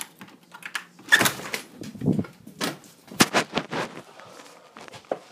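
A door being handled: a run of irregular knocks and clicks.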